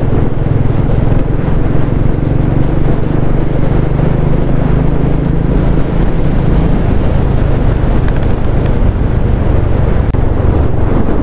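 Motorcycle engine running steadily at cruising speed, with a constant rush of wind and road noise.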